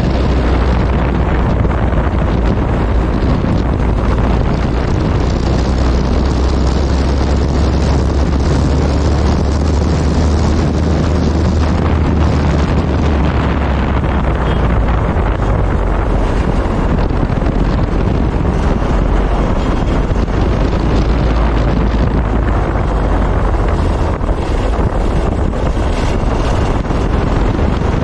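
Wind buffeting the microphone of a moving motorcycle, with the bike's engine running under it as a steady, heavy low rumble.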